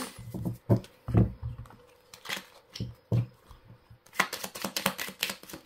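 A deck of oracle cards being handled and shuffled: scattered soft taps and card clicks, then a quick run of rapid clicking about four seconds in.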